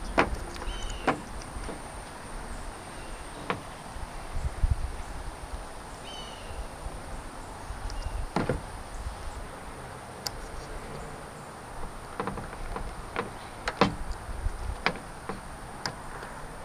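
Scattered small plastic clicks and fumbling as fingers work a red T-tap wire connector into its terminal at a car tail-light housing, the sharpest clicks about 8 and 14 seconds in. A bird gives a short call twice.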